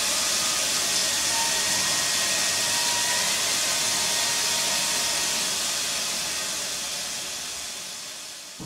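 A steady hiss of noise that fades out gradually over the last few seconds.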